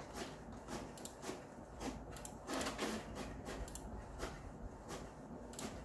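Irregular light clicks of a computer mouse, a few a second, with a short rustle about two and a half seconds in.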